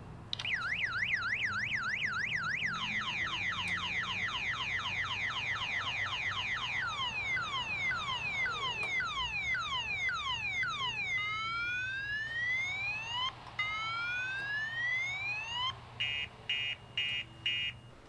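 Multi-tone car alarm siren set off in panic mode from a Viper smartphone app. It cycles through its tones: a fast up-and-down warble, then quick falling sweeps that gradually slow, then slower rising whoops, and a run of short repeated beeps near the end.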